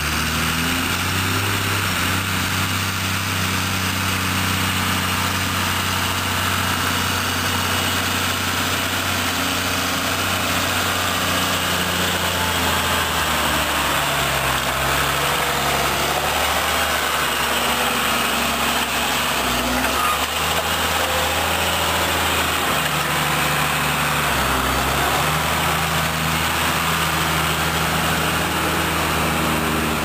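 New Holland TM155 tractor's six-cylinder diesel engine working under load while pulling a five-furrow Lemken plough, drawing close and passing by. The engine note shifts pitch several times in the second half, as the tractor reaches the headland and raises the plough.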